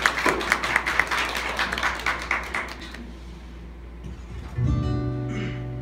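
Audience applauding for about three seconds, then an acoustic guitar starts playing, its first notes left ringing, about four and a half seconds in.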